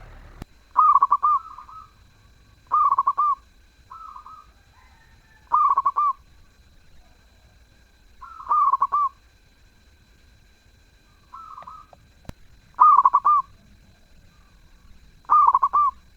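Zebra dove (perkutut) cooing its song: about eight short, rapid warbling coo phrases, some loud and a few softer, repeated every two to three seconds.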